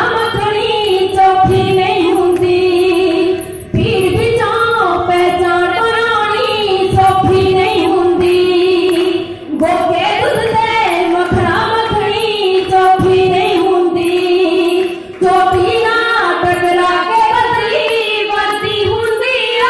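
A woman singing a Punjabi song into a handheld microphone, amplified through the hall, in long melodic phrases with short breaks between them about every five to six seconds.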